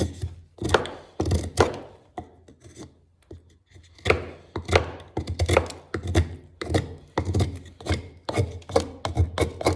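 Knife blade of 1075 carbon steel slicing through paper in repeated short strokes, a few at first, then a brief pause, then a steady run of about two cuts a second. The edge is being worn down in an edge-retention test and is starting to lose its sharpness.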